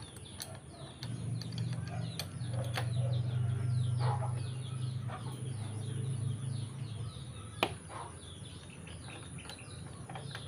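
Small birds chirping busily in the background, with a few sharp metal clicks as bolts and an Allen wrench are handled at the handlebar riser. A low steady hum comes in about a second in and fades out around seven seconds.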